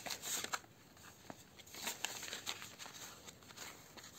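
Paper banknotes and clear plastic binder pockets rustling and crinkling as cash is handled and pulled out, with a few short light clicks and taps.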